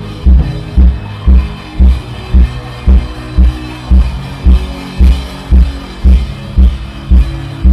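Background music with a steady deep beat, about two beats a second, under sustained keyboard-like chords.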